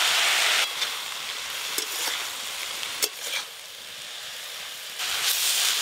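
Chopped water spinach (kalmi shak) frying in mustard oil in a metal wok, sizzling as it is stirred with a metal spatula. The spatula clicks and scrapes against the pan a few times. The sizzle is louder at the start and again near the end, quieter in between.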